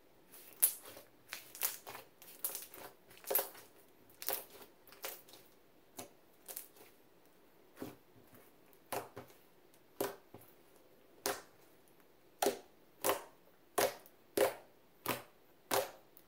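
Thick glossy slime being squished and poked by fingers, making a string of short, sharp clicks and pops. The sounds come irregularly in small clusters at first, then settle into steady pokes about one every two-thirds of a second near the end.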